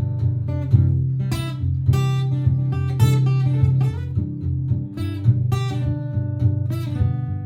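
Martin GPCPA4 acoustic guitar improvising: single plucked notes and short runs played over a repeating strummed rhythm part from a looper pedal.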